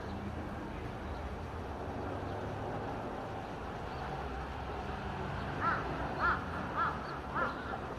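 A crow cawing four times in quick succession, about half a second apart, in the second half, over steady low background noise.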